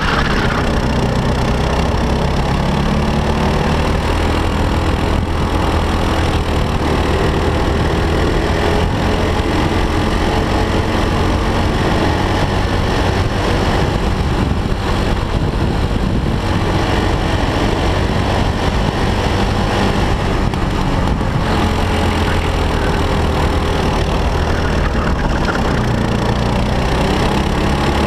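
Four-stroke racing kart engine heard from on board at race pace, its pitch rising through the straights and falling as it slows for corners, over and over.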